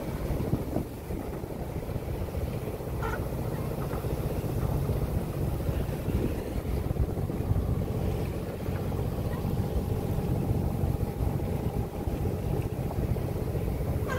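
Wind buffeting the microphone in gusts, over water rushing along the hull of a sailing ketch under way in choppy seas.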